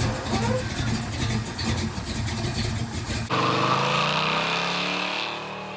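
Chevelle's exhaust running loud and rough with quick revs. About three seconds in the sound changes abruptly to a smoother engine note that falls in pitch and fades as the car moves off.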